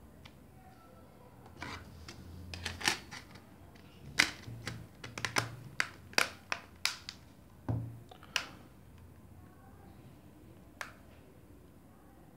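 Battery being fitted into a Walton Primo NH2 Lite smartphone by hand: a run of sharp plastic clicks and snaps, about a dozen over six seconds, then one more click near the end.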